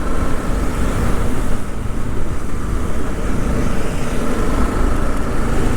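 Wind rushing over a rider's microphone on a moving motorcycle, with the engine running underneath.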